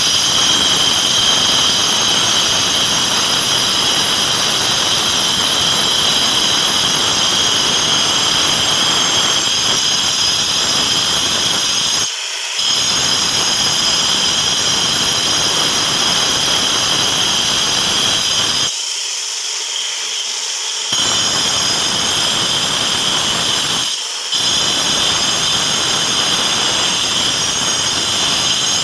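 Handheld angle grinder running under load, its disc grinding the edge of a sink cutout in a granite countertop, with a steady high motor whine over the grinding noise. The grinding noise drops out briefly three times, longest for about two seconds two-thirds of the way through, while the motor keeps running.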